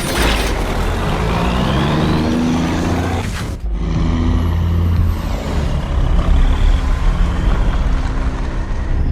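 Heavy truck engine running loud and steady, broken by an abrupt cut about three and a half seconds in before it carries on.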